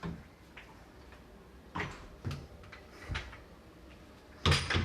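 A few scattered light knocks and clicks from closet doors and their contents being handled, with a louder clatter near the end.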